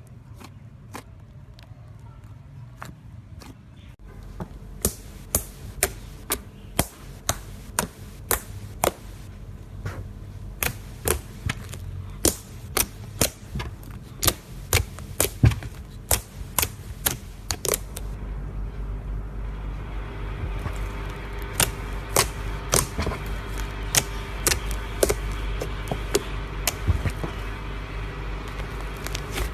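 Slime being squeezed and kneaded by hand, with sharp popping clicks as air pockets burst, about two a second from a few seconds in; from about the middle on, a denser crackle runs under softer pops.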